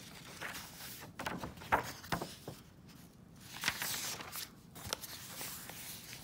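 Paper rustling and soft handling noises from the pages of a paperback coloring book being moved and turned, with scattered small clicks in irregular bursts.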